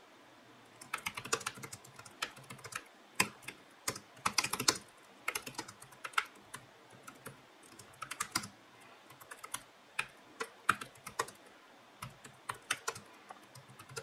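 Typing on a Logitech K380 Bluetooth keyboard: rapid, light clicks of its round scissor-switch keys in irregular bursts, starting about a second in.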